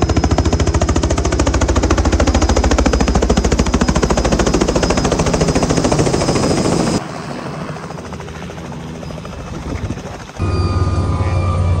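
Robinson R66 helicopter coming in to land, its rotor beating in a rapid, even pulse. About seven seconds in the sound drops abruptly to quieter noise, and near the end a steady low drone starts.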